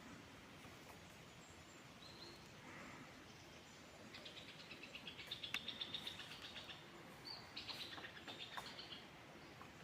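Black woodpecker calling in two quick series of short, evenly repeated high notes, the first starting about four seconds in and the second, briefer one following about a second later.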